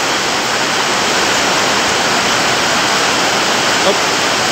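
Steady rain falling, heard as an even, unbroken hiss.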